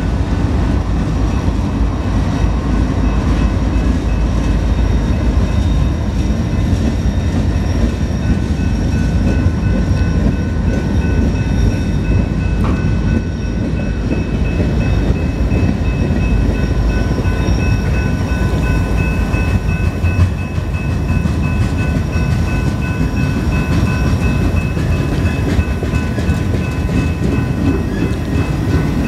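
BNSF freight train passing close by: diesel locomotives at first, then a long string of freight cars rolling over the rails in a steady loud rumble. Thin steady high tones sit above the rumble.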